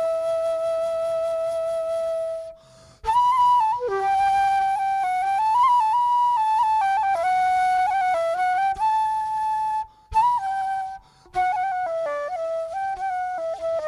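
Background music: a single flute plays a slow melody with long held notes. It breaks off briefly about three seconds in and again around ten and eleven seconds in.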